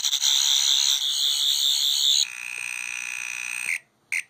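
Wand Company 12th Doctor sonic screwdriver remote playing its sonic sound effect in FX mode through its small speaker: a warbling high electronic whine. About two seconds in it switches to a different, lower whine, then cuts off near the end, followed by one short chirp.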